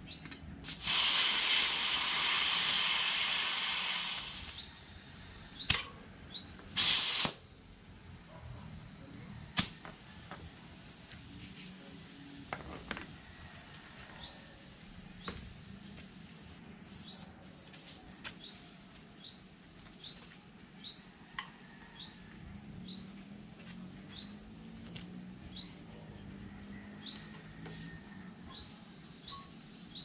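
Compressed air hissing from an air hose for about three and a half seconds, then a second, shorter burst of air. Later, a short high rising chirp repeats about once a second.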